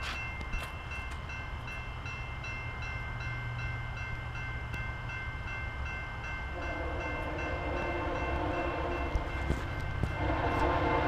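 Level-crossing warning bell ringing steadily, about three strikes a second. About six and a half seconds in, an approaching train's horn sounds a long blast, then after a short break a second, louder blast.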